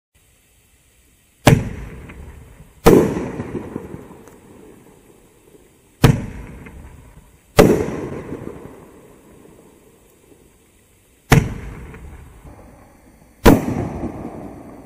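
Winda 'Jellyfish Aquarium' 9-shot fireworks cake firing: six sharp bangs at uneven gaps, each dying away over a second or two.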